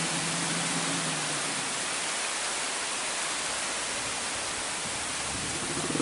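A steady, even hiss, with a low hum that fades out about a second and a half in.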